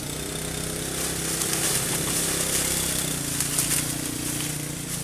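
A small engine running with a steady hum, growing louder over the first couple of seconds and easing off toward the end.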